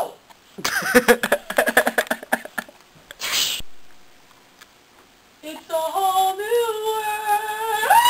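A high-pitched wordless voice. It makes rapid choppy vocal sounds for the first couple of seconds and a short hiss, then holds one long wavering sung note, like a yodel, from about five and a half seconds in.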